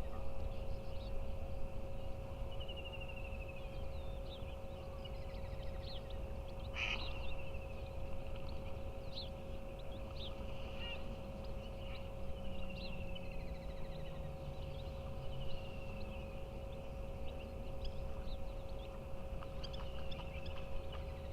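Wild wetland birds calling: scattered short chirps and repeated falling trills, over a low steady rumble and a faint constant hum.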